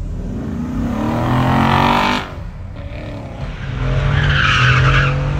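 A C7 Corvette's V8 accelerating hard, rising in pitch as it pulls away, then cut off abruptly about two seconds in. After a short lull another vehicle accelerates hard, with tyres squealing about four seconds in.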